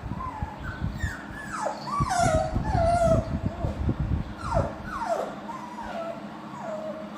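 Dog whining in a string of high cries that each slide downward in pitch. This is separation distress at its owners leaving for work. Low knocks sound under the first few seconds.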